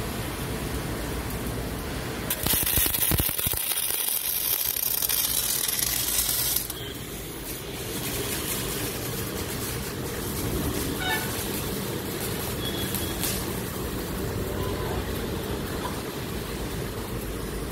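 Steady workshop noise, with a loud hiss that starts about two seconds in and cuts off about four seconds later.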